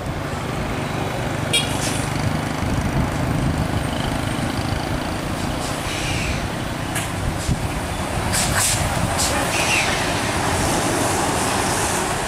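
Hino SG 260Ti fuel tanker truck's six-cylinder diesel engine running as the truck drives slowly through a bend, with road noise. A few short sharp clicks or hisses break through, the loudest cluster about eight seconds in.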